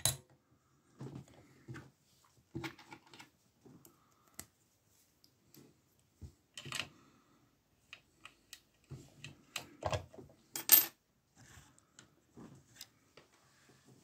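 Light metallic clicks, scrapes and taps of a steel lock pick working in a small brass lock cylinder, with the lock being handled, coming in scattered bursts; the loudest is a sharp clink a little under eleven seconds in.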